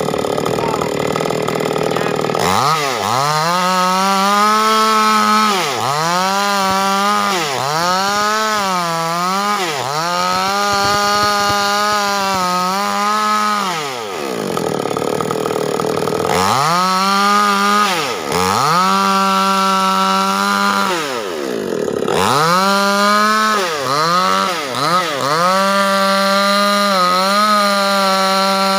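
Proquip mini two-stroke chainsaw ripping lengthwise through a large wooden beam. After a lower, steady stretch at the start, the engine revs up and runs at high speed. Its pitch sags each time the chain bogs in the cut and then picks up again, with a longer drop in revs about halfway and several quick dips near the end.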